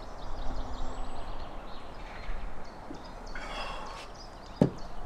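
Outdoor background with faint bird calls, then a drinking glass set down on the table with one sharp knock about four and a half seconds in.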